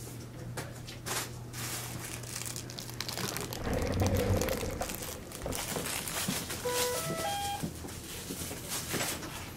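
Rustling and handling noise at the bedside, then, about seven seconds in, a quick run of five or six short electronic beeps at different pitches, rising overall, from the IV infusion pump as the drip is changed over to iron.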